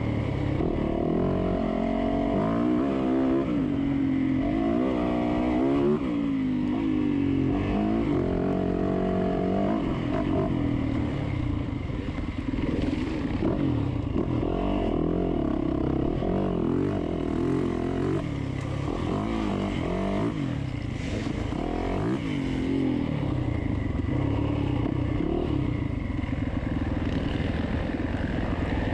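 Dirt bike engine under hard riding, its pitch climbing and dropping again and again as the throttle is opened and closed and the gears are shifted, most busily in the first ten seconds.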